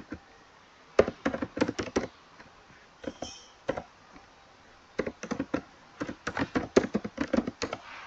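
Laptop keyboard typing in quick runs of keystrokes with short pauses between them, the longest run in the second half.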